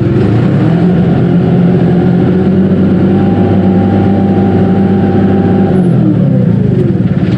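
Dongyang TX653 tractor's diesel engine running, revving up about a second in, holding steady speed for several seconds, then dropping back down about six seconds in.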